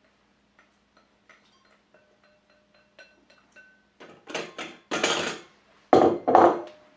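Spatula scraping chutney out of a ceramic bowl into a metal funnel, at first as faint soft taps. From about four seconds in come louder scrapes and knocks, the loudest starting suddenly about six seconds in, as the bowl is set down on the wooden counter and scraped inside.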